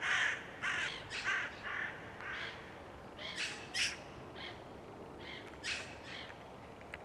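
Several crows cawing in a string of short, harsh calls, roughly two a second, some louder than others.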